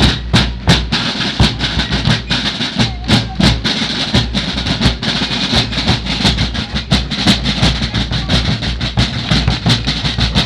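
Fife and drum corps playing a march: rope-tensioned field drums beating a quick, steady rhythm while shrill fifes play the tune above.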